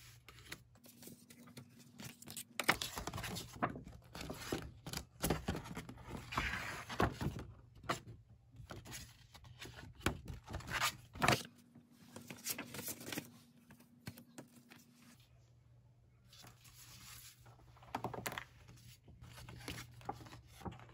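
Paper rustling and crinkling as folded paper leaflets and a paper sheet are handled, opened and shuffled, with light taps and scrapes. It comes in bursts, busiest in the first half, with a quieter few seconds past the middle before more handling.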